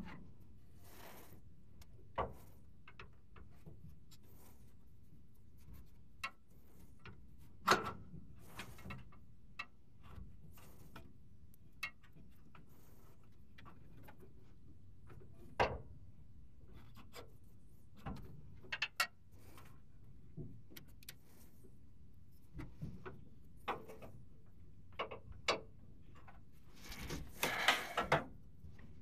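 Scattered small clicks, knocks and rubbing as hands and tools work a new rear shock absorber and its mounting bolt into place under a pickup truck, with a denser flurry of clatter near the end.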